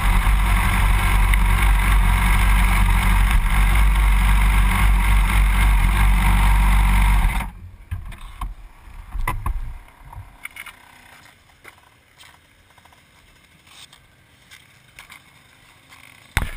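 Wind buffeting and engine and tyre noise from a Yamaha R1 ridden at speed, heard by a camera mounted low beside the front wheel. About seven seconds in it cuts off abruptly to a much quieter stretch with faint scattered clicks and knocks.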